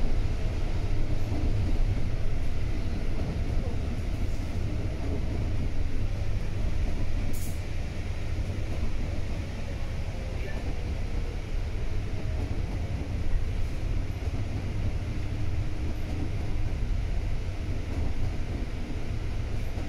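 Volvo B9TL double-decker bus on the move, heard from inside: a steady low rumble of the diesel engine and road noise, with no sharp events.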